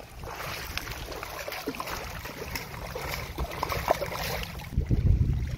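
Shallow seawater splashing and sloshing as a hooked blue stingray flaps at the surface, with louder splashes near the end.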